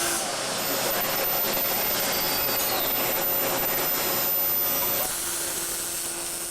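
Welding arc crackling steadily on an exhaust pipe for about five seconds, then stopping, leaving a steady low hum.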